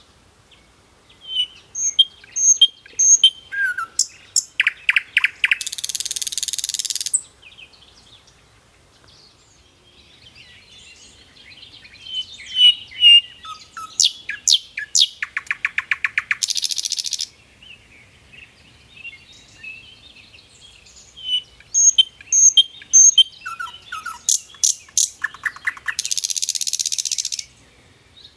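Birdsong track playing in a loop: a run of high chirps, a quick trill, then a harsh buzzy note. The same sequence repeats three times, about every ten seconds.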